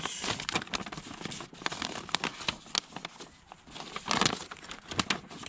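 Paper crinkling and rustling, with many small crackles and clicks, as an instruction sheet is handled and unfolded; the rustle grows louder about four seconds in.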